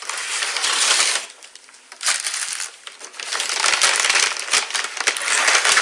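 Paper fast-food bag and wrappers rustling and crinkling as food is pulled out and unpacked, in three bouts: about the first second, briefly around two seconds in, and from about three and a half seconds to the end.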